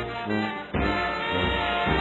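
Instrumental background music led by brass, playing held notes, with a brief break between phrases just under a second in.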